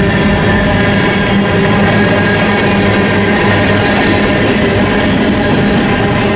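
A train rolling past close by: continuous loud rolling noise with steady ringing tones from the wheels and rails.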